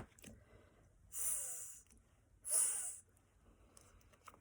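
A woman's voice sounding out a breathy, hissing phonics sound twice, about a second apart.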